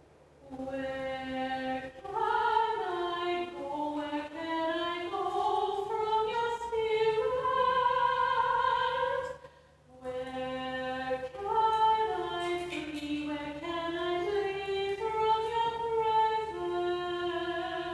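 A woman singing a slow melody with long, held notes, in two long phrases with a short breath-like break about halfway.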